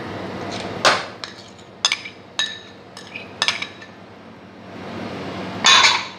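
A metal spoon clinking and scraping against the rim of a bowl of whipping cream as the cream is scraped out into a blender jar: about five sharp clinks in the first few seconds, then a louder scrape near the end.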